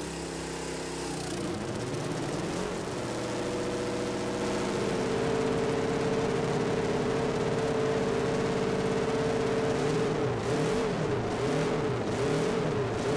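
Honda RC160 racer's 250 cc four-cylinder four-stroke engine running just after being fired up: the "Honda music" of four small cylinders at high revs. The note holds steady, then from about ten seconds in the throttle is blipped repeatedly, the pitch rising and falling about once a second.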